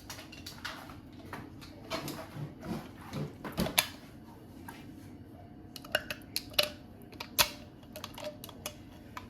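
Kitchen handling noises: scattered sharp clicks and knocks of utensils and containers being handled on a counter, over a steady low hum.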